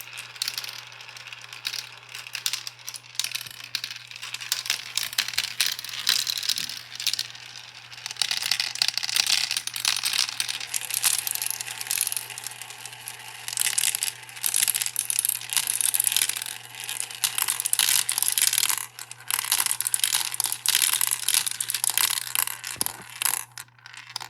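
Marbles rattling and clicking along a marble run: a dense, rapid clatter of small hard hits that swells and eases several times, then stops just before the end.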